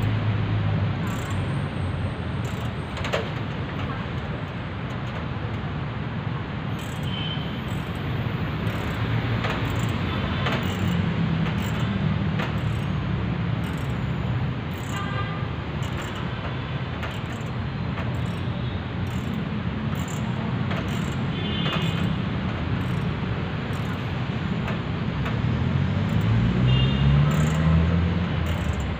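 Steady low rumble of road traffic, with one vehicle's engine rising in pitch near the end. Light metallic clicks and taps come through now and then as steel shelving parts are handled.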